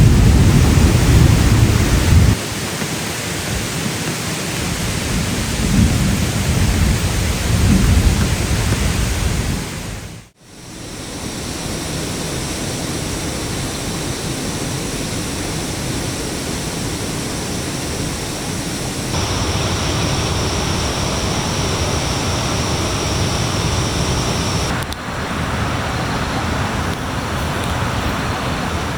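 Heavy rain falling with low rumbles of thunder in the first seconds and again a few seconds later. The sound drops out briefly about ten seconds in, then the rain runs on steadily.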